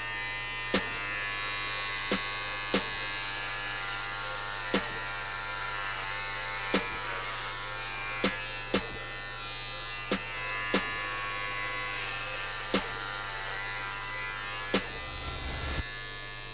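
Electric hair clippers with a guard comb buzzing steadily as they run through long, thick curly hair. Sharp clicks come every second or two over the buzz.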